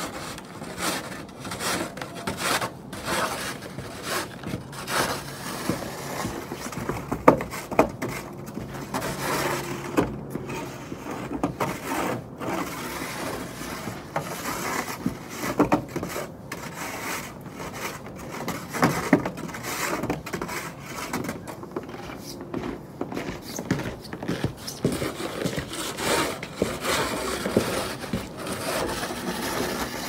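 Snow shovel scraping through snow on a hard surface in repeated irregular strokes, with a couple of sharper knocks about seven to eight seconds in.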